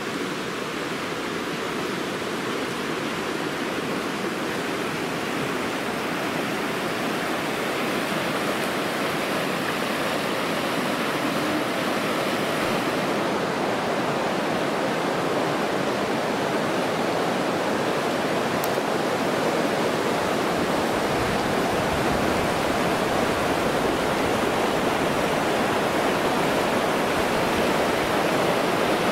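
Steady rush of river water flowing over the rocks of a mountain riverbed.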